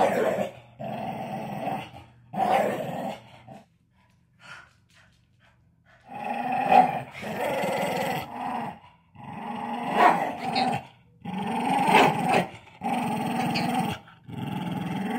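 Dog play-growling while tugging on a rope toy, in repeated bursts of one to three seconds, with a quiet spell of about two seconds midway.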